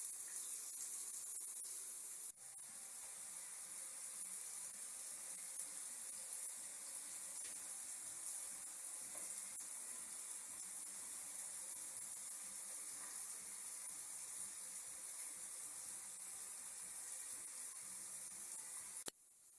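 Water running from a newly installed shower valve, a steady spraying hiss with a brief break about two seconds in, cutting off suddenly near the end.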